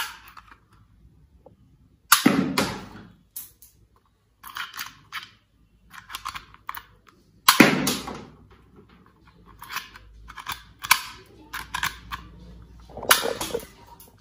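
Toy police dart gun firing foam darts: three sharp plastic snaps about five seconds apart, with smaller clicks of darts being loaded and the gun cocked in between.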